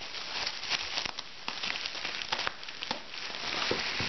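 Large-bubble plastic bubble wrap crinkling and rustling as a sheet is handled, unfolded and spread flat, with scattered small crackles and a few sharper clicks.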